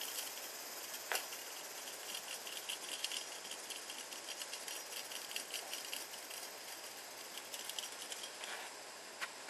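A cat batting and pouncing at a feather wand toy on tatami matting: light rustles and soft ticks over a steady high hiss, with a sharper tap about a second in and another near the end.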